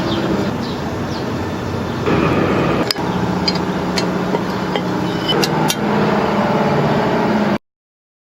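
A steady engine drone with a few sharp clicks, cutting off abruptly near the end.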